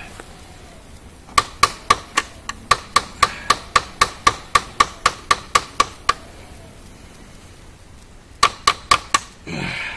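Rapid metal-on-metal hammering, about four ringing blows a second for some five seconds, then four more after a short pause: a skull-crusher pommel beating on a Nedfoss bushcraft knife to drive its blade deeper into a tree trunk.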